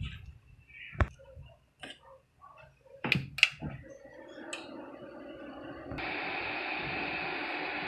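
Audio jack and cable being handled and plugged in: a few sharp clicks and pops, then a steady electrical hiss that switches on suddenly about six seconds in.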